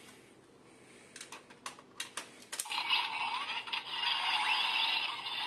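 Several plastic clicks as a key is pushed into an electronic Ultraman transformation toy, then the toy's electronic sound effect plays through its small speaker, a sustained synthetic tone with sweeping pitch glides.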